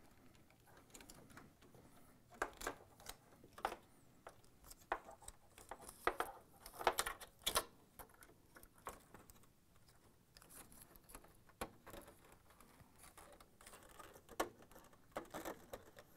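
Faint, irregular clicks and rustles of a plastic wiring harness and connector being handled and pressed into plastic retainer brackets on a washer's sheet-metal top frame, busiest about six to eight seconds in.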